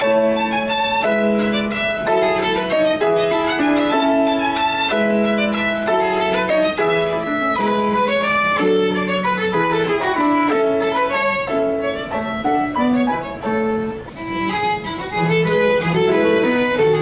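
Violin and grand piano duo playing live: the violin carries a quick melody of many short notes over the piano accompaniment.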